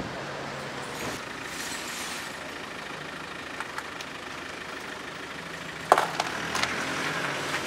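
Street ambience with a vehicle engine running. About six seconds in there is one sharp clatter, followed by a second or so of scraping.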